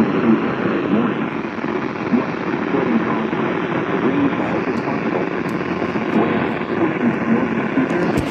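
Weather radio receiver playing a NOAA Weather Radio broadcast through heavy, steady static, with a voice faintly audible under the hiss and a few light clicks in the second half.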